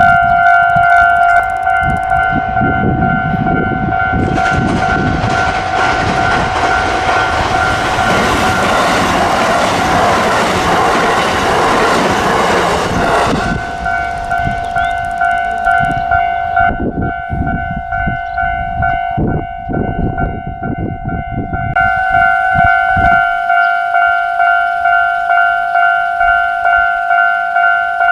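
Japanese railway level-crossing warning bells ring in a steady pulsing two-tone pattern while a JR Hanwa Line train passes. The loud rush of the train runs from about four seconds in to about thirteen, followed by a lower rumble with wheel clacks that dies away at about twenty-three seconds. The bells ring the whole time.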